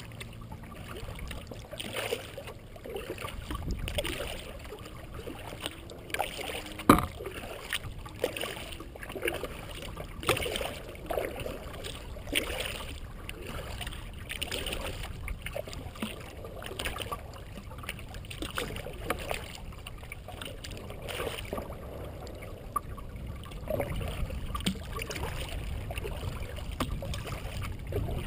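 Kayak paddle strokes, repeated every second or two: the blades dip and splash, and water runs off them. About seven seconds in there is a single sharp knock, the loudest sound. A low rumble sits underneath.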